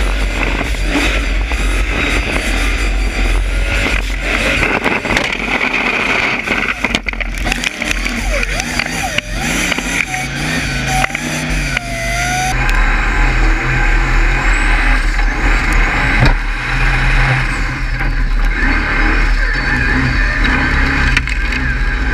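Formula offroad buggy's engine heard through an onboard camera, running hard as the car works up a steep muddy hill, under a loud rush of spraying mud. Its pitch rises and falls through the middle, and the sound changes abruptly about twelve seconds in.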